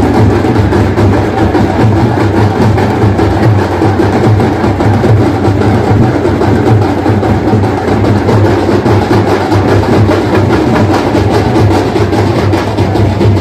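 Drums beaten fast and loud without a break, for a Muharram akhada, over a dense clatter of bamboo staves (lathis) knocking against each other.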